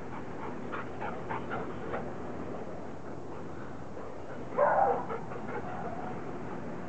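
Dogs playing: a few short, soft yips in the first two seconds, then one louder bark about halfway through.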